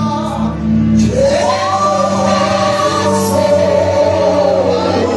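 Live gospel worship music: voices sing one long held note, starting about a second in, over keyboard chords and bass.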